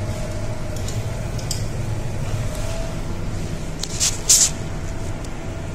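Steady low machinery hum of a ship's bridge, with a faint steady tone over it. A short rustle about four seconds in is the loudest sound.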